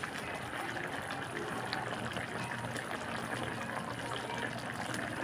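Coconut-milk sauce of Bicol Express simmering in a wok over a gas flame: steady bubbling with many small pops.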